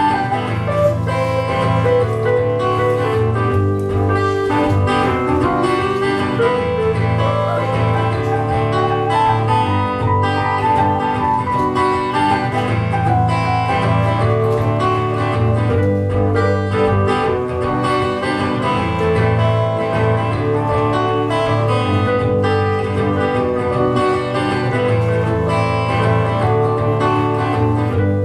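Instrumental music of a song with no singing: a plucked, guitar-like line over steady sustained bass notes, played live by a performer at a keyboard.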